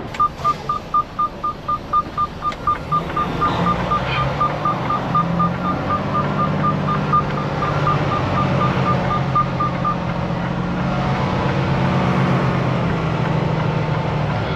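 Rapid electronic beeping, one high tone about four times a second, that stops about ten seconds in. Under it a diesel engine runs with a low, steady hum that comes in after a few seconds.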